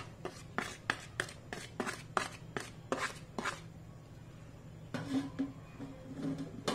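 Steel spoon scraping and tapping on a plastic plate and box as spices are knocked off onto raw chicken: about a dozen light, quick knocks in the first three and a half seconds, then a few softer taps and a last sharp knock near the end.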